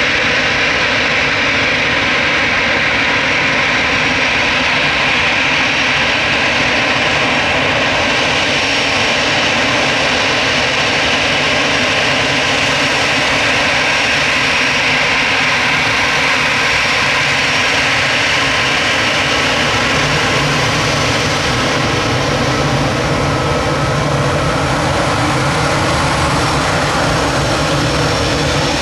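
Airbus A319 airliner's twin jet engines running steadily at low power as the aircraft taxis and turns on the runway: a loud, continuous whine over a rumble. The low rumble grows stronger about two-thirds of the way through.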